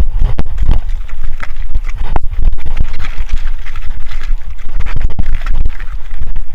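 Kona Honzo hardtail mountain bike ridden over rough trail, heard from a bike- or body-mounted camera: a constant low rumble with frequent irregular knocks and rattles as the wheels hit roots and rocks.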